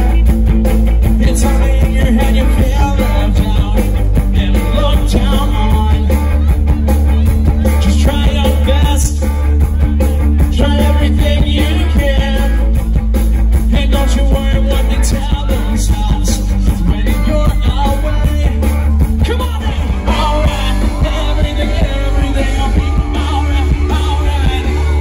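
Live rock band playing loud through a PA: electric guitars, bass and a drum kit, with a steady drumbeat.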